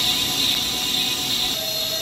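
Hankook Protec 9-NC heavy CNC lathe cutting a metal workpiece: a steady cutting hiss over the machine's hum, joined by a steady whine about one and a half seconds in.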